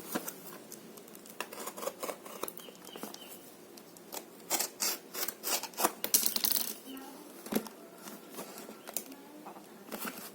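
Packaging being opened by hand: crinkling and tearing of plastic and cardboard with scattered clicks, loudest in a run of crackling tears about four to seven seconds in.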